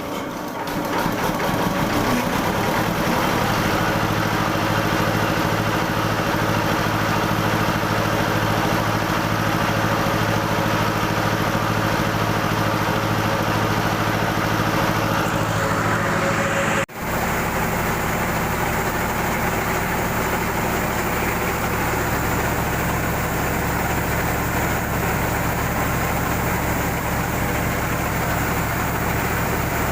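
Rice mill machinery, an N50 rice husker with a rice polisher, running steadily with a constant machine drone. About 17 seconds in the sound cuts out for an instant and comes back with a deeper, heavier drone.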